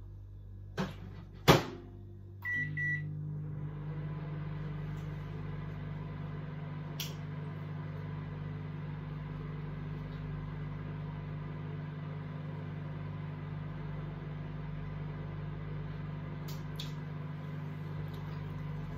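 Microwave oven reheating cold rice: two sharp clicks about a second in, a few short high beeps, then the oven starts and runs with a steady hum.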